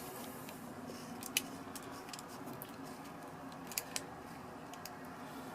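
A few faint, sharp clicks and taps of a wristwatch being handled and fitted into measuring calipers: one about a second and a half in, then two close together near the end, over a quiet steady room hum.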